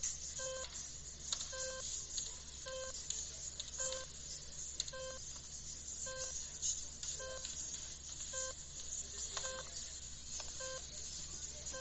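Electronic beeps repeating steadily, a short multi-tone beep about once a second, over a constant low hum.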